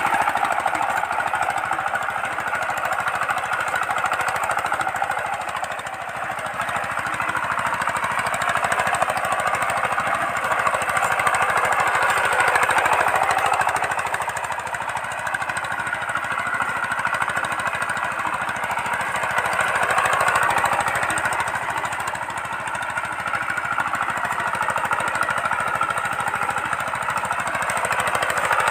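Single-cylinder diesel engine of a two-wheel power tiller running with a rapid knocking chug while pulling a ladder leveller over tilled soil. The level swells and dips a few times.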